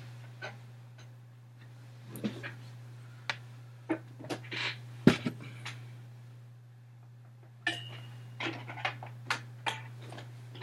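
Handling noise: scattered light clicks, knocks and clatter, with the sharpest knock about five seconds in and a busier run of clicks after about eight seconds, over a steady low hum.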